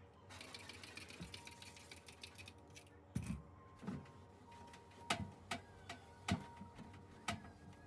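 A soft hiss for the first few seconds, then a run of about seven sharp clicks and light knocks, as of small objects being handled and set down.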